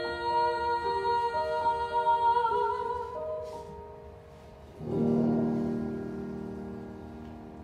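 A woman's voice holds a long high final note with vibrato over piano accompaniment, dying away about three seconds in. Just before five seconds a final piano chord is struck and left to ring, fading slowly.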